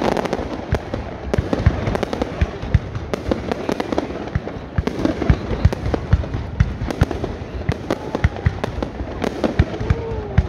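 Fireworks display: aerial shells and rockets bursting in a dense, irregular run of bangs and pops over continuous crackling.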